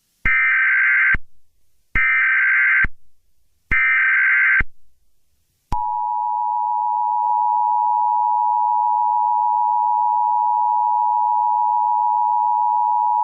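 Emergency Alert System tones: three bursts of SAME digital header data, each about a second long with short gaps between. About six seconds in, the steady two-tone attention signal begins and holds to the end.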